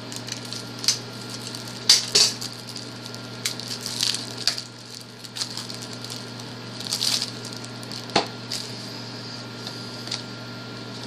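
Crinkling and rustling of plastic wrapping around trading cards as it is handled and opened, in irregular bursts, with a few sharper crackles about two and eight seconds in. A steady low hum runs underneath.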